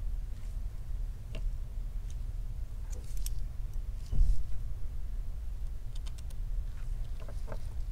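Scattered light clicks and ticks from a phone and small repair tools being handled on a workbench, with one dull thud about four seconds in, over a steady low hum.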